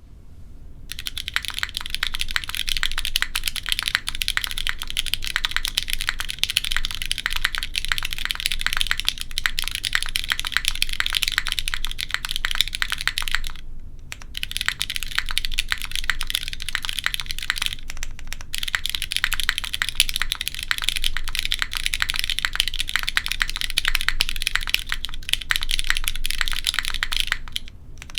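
Typing on a gasket-mounted Kohaku 65% mechanical keyboard with Cherry MX2A Black linear switches on an aluminium plate: a fast, continuous run of keystrokes with a clean, bright, high-pitched sound. The typing stops briefly about 14 seconds in, again at 18 seconds, and near the end.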